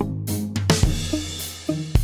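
Background music with a steady drum-kit beat, with a cymbal crash a little under a second in.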